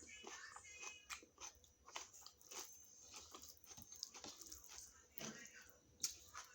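Close-up chewing and wet mouth clicks of a person eating, in short irregular smacks.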